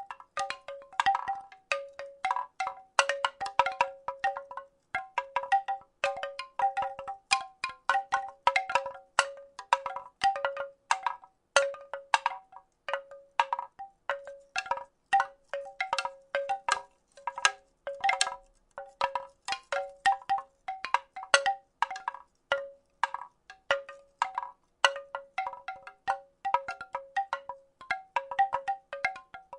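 Wooden rattle shaken in an uneven rhythm, its wooden pieces clacking together several times a second, each clack ringing briefly on the same two hollow notes.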